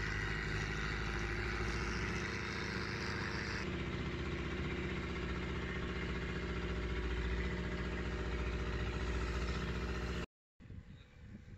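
Longtail boat's engine running steadily under way, with water rushing and splashing along the hull. It cuts off suddenly near the end, leaving only faint wind and water.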